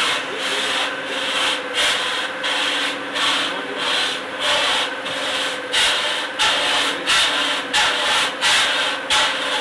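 Industrial sanding machine running, its abrasive rubbing on a workpiece in repeated strokes about twice a second over a steady motor hum.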